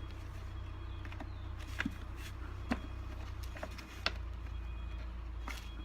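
Scattered sharp clicks and knocks of plastic vacuum-cleaner casing parts being handled and fitted together, over a steady low rumble.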